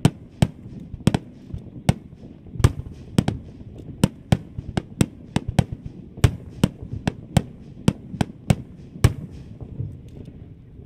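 Aerial fireworks shells bursting in a rapid string of sharp bangs, about two to four a second, over a low rumble. They thin to faint crackles near the end.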